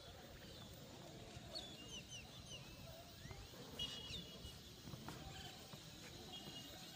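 Birds chirping faintly: scattered short, falling chirps, with a louder one about four seconds in, over a faint outdoor background.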